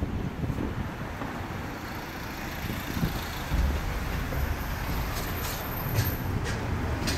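Light street traffic: cars driving along the road past the pavement, a steady low rumble with a few faint clicks in the second half.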